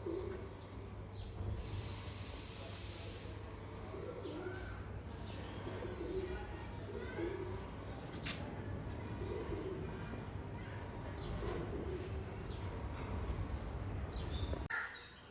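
Pigeons cooing, a low coo repeated about once a second, with small birds chirping faintly. A brief high hiss comes about two seconds in, and a single sharp click comes past the middle.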